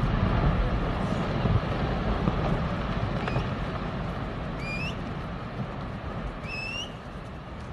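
Glacier ice calving: a huge section of the ice face collapses into the water with a deep, rushing rumble that slowly fades. A few short, high, rising calls come through in the middle and near the end.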